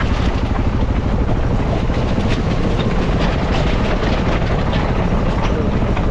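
A 650 dual-sport motorcycle's engine running under a steady clatter of rattles and knocks as the bike rides over large, loose rock.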